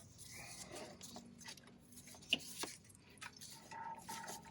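Faint hands-on work on an engine's serpentine belt and pulleys: scattered light clicks and rubbing, with one sharper click a little over two seconds in.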